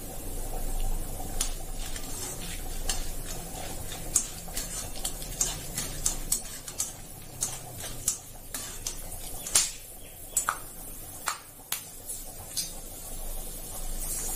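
Metal spoon stirring and scraping in an aluminium kadai while cumin seeds, black peppercorns and cashews fry in hot ghee for a tempering. A low sizzle runs under many sharp, irregular clicks and pops.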